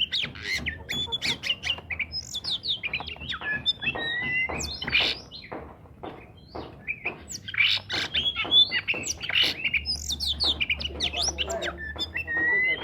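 Oriental magpie-robin singing vigorously: a fast, unbroken run of varied whistles, sliding notes and harsh squawky calls.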